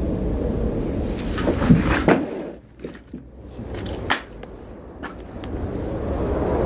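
A few sharp knocks and bangs over a low steady rumble; the rumble drops away for a couple of seconds in the middle, leaving a few faint clicks, then comes back.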